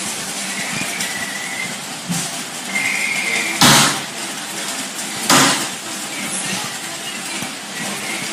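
Kitchen wall-cabinet doors being swung open and shut, with two sharp bangs about a second and a half apart near the middle as doors close against the cabinet frames.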